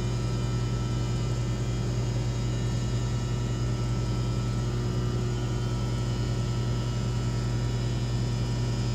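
Steady mechanical drone from a ready-mix concrete batch plant: a strong low hum with several fixed higher tones above it, running without change. It is an unidentified plant noise that has gone on continuously for about an hour and can be heard across the neighbourhood.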